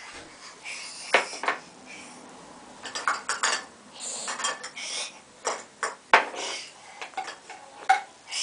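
Plastic toy tea set clattering as a toddler handles it: cups, saucers and a toy teapot knocked and set down in a string of light, irregular clicks and clinks.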